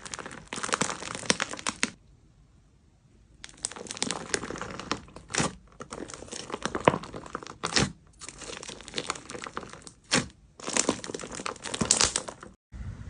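Crunchy slime packed with block beads being squeezed and kneaded, giving dense crackling crunches in stretches of a second or two, with a short quiet gap near the start and a few sharper single pops.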